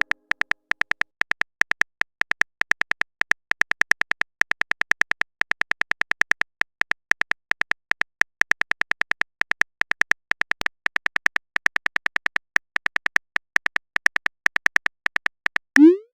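Simulated phone-keyboard typing: a rapid, uneven run of short, sharp key clicks, several a second with brief pauses. Just before the end a short rising blip sounds.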